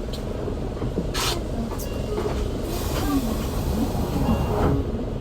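Interior running noise of a QDG-LV290N1 city bus under way: a steady low engine and road rumble, with a short burst of hiss about a second in.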